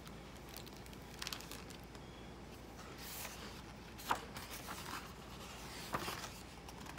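Pages of a hardcover picture book being opened and turned by hand: faint paper rustles and swishes, with two short sharp ticks about four and six seconds in as the pages flip over.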